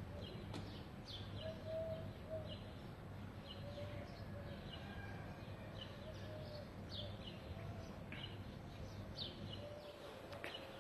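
Small birds chirping faintly: a steady run of short, falling chirps over low background noise.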